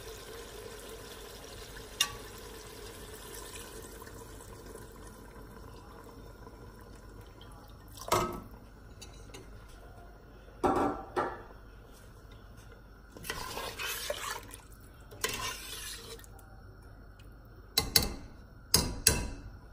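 Water pouring from a glass jug into a steel pressure cooker pot at first. Then a steel ladle knocks and scrapes against the pot several times as a thin curry is stirred, with two or three sharp clinks close together near the end.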